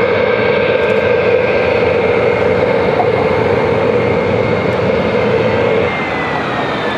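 Jet airliner engines running: a steady rush of jet noise with a whine in it. About six seconds in the strongest band drops away and a high tone starts falling in pitch.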